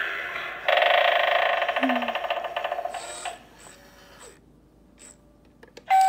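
Halloween eyeball doorbell prop playing a sound effect through its small speaker. About a second in it gives a loud, rattling, bell-like ring that dies away after about two and a half seconds. Near the end its push button clicks and the next sound starts.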